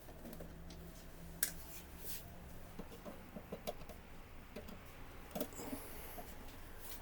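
Faint clicks and taps of screwdriver work on the plastic housing of an HP Smart Tank printer as its scanner screws are removed, over a low steady hum.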